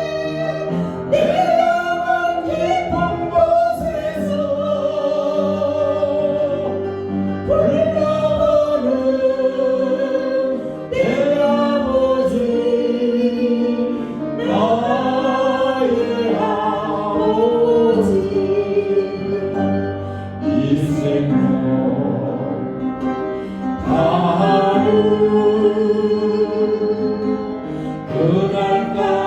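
Congregational praise singing: several voices sing a slow worship song in long held notes over instrumental accompaniment.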